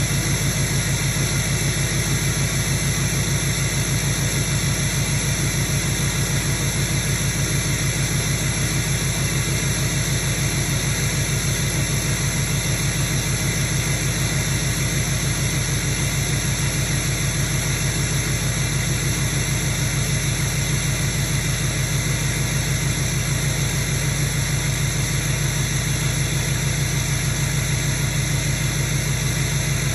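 LMM Duramax 6.6-litre turbodiesel V8 idling steadily, its exhaust pulses heard at the tailpipe, with the engine still cold in 15-degree weather.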